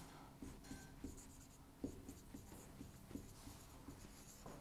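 Faint squeaks and taps of a marker pen writing on a whiteboard, a quick irregular run of short strokes.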